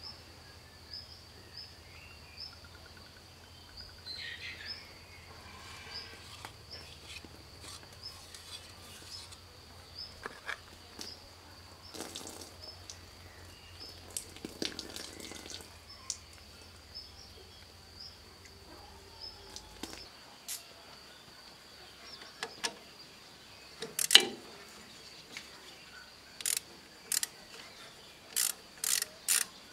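A socket ratchet clicking in short quick bursts near the end, on the fuel filter housing of a Fiat 450 tractor. Before that, scattered light clicks of metal parts being handled, over a steady high-pitched insect drone.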